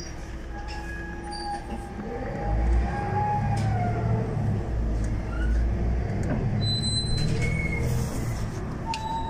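City bus engine running, its deep rumble growing louder about two and a half seconds in.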